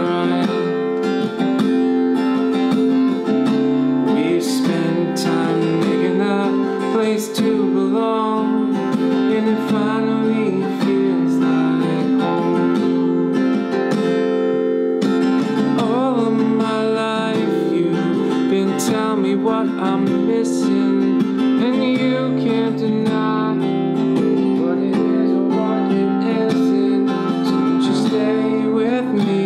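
Ibanez cutaway acoustic guitar with a capo, strummed steadily through a song's chord progression.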